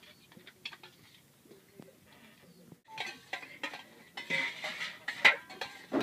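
Spoons scraping and clinking against metal plates as people eat. It is faint at first, then louder and busier from about three seconds in, with one sharp clink a little after five seconds.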